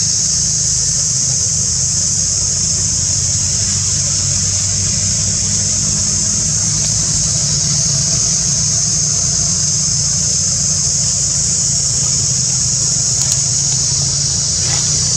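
Loud, steady, high-pitched insect chorus that does not let up, over a steady low rumble like an engine running somewhere off.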